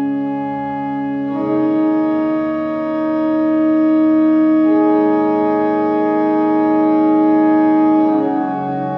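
Music of slow, sustained chords held as steady tones, the harmony shifting about a second and a half in, again midway, and near the end.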